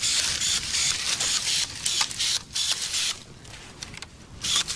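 Rustling and crackling of dry quince suckers and twigs being handled and cut with battery-powered pruning shears, with a run of short clicks from the cuts. The noise is dense for about three seconds, then quieter with a few more clicks near the end.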